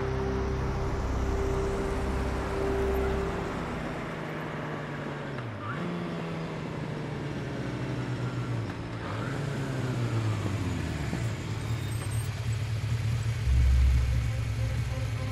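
Sport motorcycle engine running, its pitch dipping and then climbing in glides as the rider slows and speeds up through the gears. It settles into a steady low drone as the bike pulls up, with a brief louder low rumble near the end.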